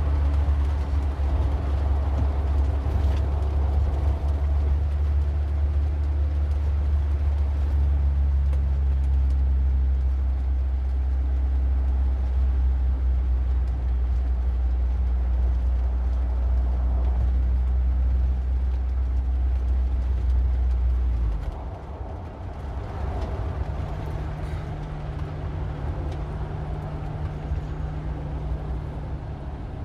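A car driving: a heavy, steady low rumble of engine and road noise with shifting engine tones. About two-thirds of the way through the rumble drops off suddenly, leaving a quieter, steady engine hum.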